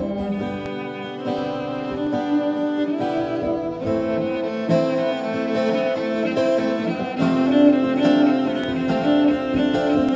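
Acoustic guitar strummed steadily under a bowed cello playing long held notes: an instrumental passage of a guitar-and-cello duet.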